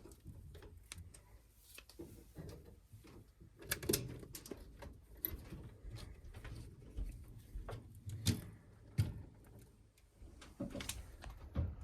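Scattered knocks, clicks and rustles of things being handled, with sharper knocks about four, eight and nine seconds in.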